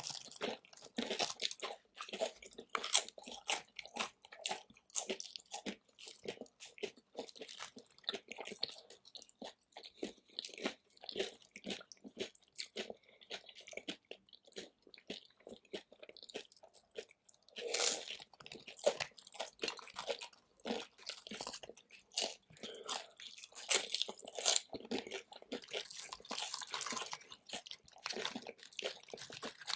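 Close-miked crunching and chewing of tortilla-chip nachos loaded with guacamole and salsa, with many irregular crisp crunches as the chips are bitten and chewed.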